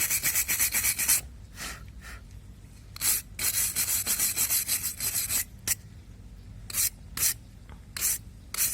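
A hand brush scrubbing rusted metal parts of a car's radiator fan motor, in quick back-and-forth strokes: a fast run at the start, another from about three to five and a half seconds in, then a few single strokes.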